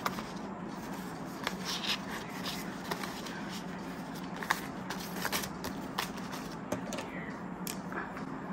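Australian polymer banknotes being flicked through and counted by hand: a string of short, irregular crisp snaps and rustles.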